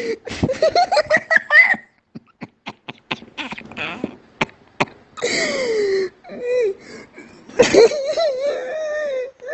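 A man laughing uncontrollably: quick bursts of laughter and short wheezing gasps for breath, then two long, high-pitched squealing laughs in the second half.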